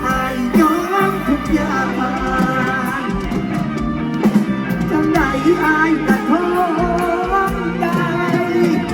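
Live band playing an Isan Thai song, with a voice singing over guitar and a steady band backing.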